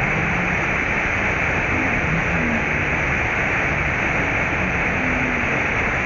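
Menal waterfall in heavy flow: the steady rush of a large volume of water falling into a deep gorge.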